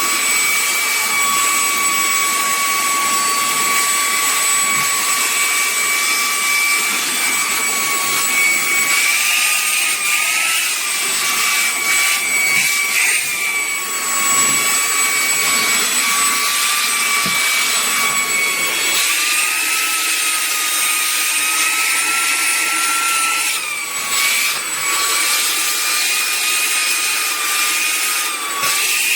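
Small cordless handheld vacuum and air-blower motor running steadily at full speed: a loud, high fan whine over a rush of air, its pitch wavering slightly a few times.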